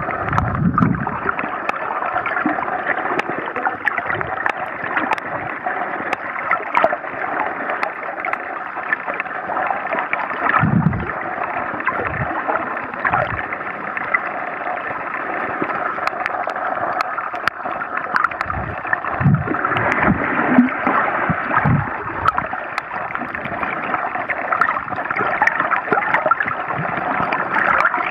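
Sound picked up by a camera held underwater while snorkeling: a steady muffled water rush with scattered faint clicks, and a few low dull thumps, a cluster of them in the second half.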